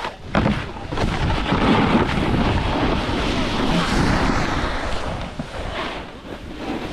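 Wind rushing over the microphone of a camera carried by a rider moving fast downhill, a steady buffeting noise that eases off briefly about six seconds in.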